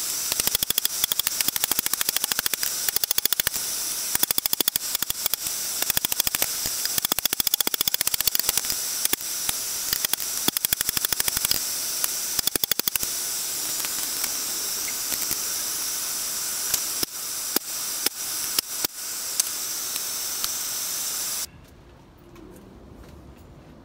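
Hand hammer blows on a steel lawnmower blade over a railroad-rail anvil: rapid metal-on-metal strikes, several a second in runs, thinning out later. Under them a steady loud hiss that cuts off suddenly near the end.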